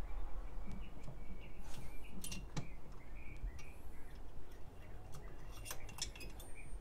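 Small clicks and metallic ticks from a headlight's wire bulb-retaining spring clip being unhooked and the halogen bulb being worked out of its socket by hand, a few around two seconds in and more near the end.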